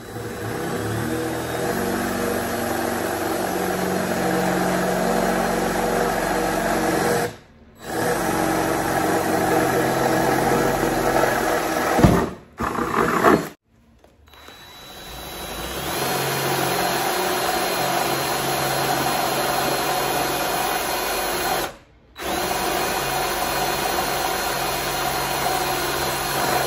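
A power drill with a 5/16-inch bit drilling pilot holes through the top sheet-metal layer of a car's trunk lid. It runs steadily in several long stretches with short stops between them, and there is a sharp click about twelve seconds in.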